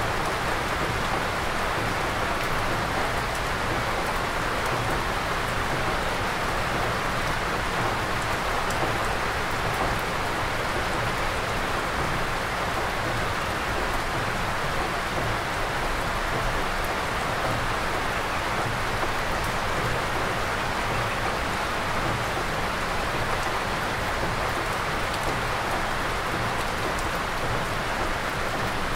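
Steady rain falling on a forested mountainside, heard from a sheltered wooden porch: an even, unbroken hiss of rain with no single drops or gusts standing out.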